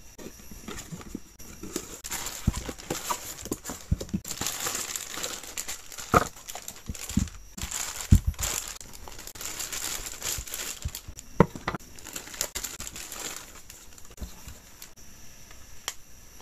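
Clear plastic packaging crinkling and rustling as an anime figure and its plastic display base are unwrapped by hand, with a few light knocks. The crinkling is busiest in the middle and dies down near the end.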